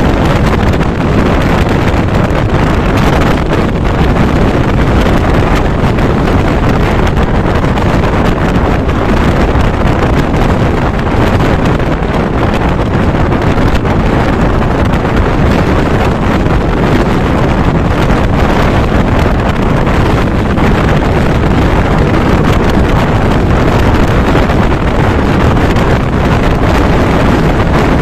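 Loud, steady wind buffeting a microphone held out of a moving passenger train's window, over the train's running noise.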